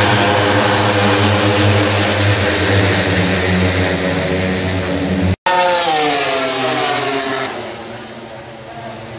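MotoGP race motorcycles, 1000 cc four-cylinder engines, running at high revs as the pack passes at full speed. After a brief dropout about five seconds in, one engine's pitch falls as it passes, then the sound fades.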